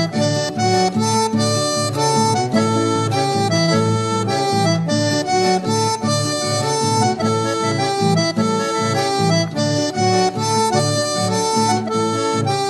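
Instrumental music with no singing: a melody of held notes moving every fraction of a second over sustained lower chord notes, at a steady level throughout.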